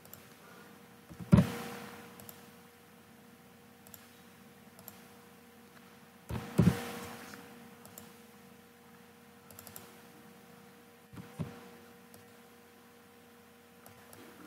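Computer mouse clicks and knocks on the desk, heard close to the microphone: three loud knocks, about a second and a half in, around six and a half seconds and near eleven seconds, each with a short ringing tail, with fainter clicks between them. A steady faint electrical hum runs underneath.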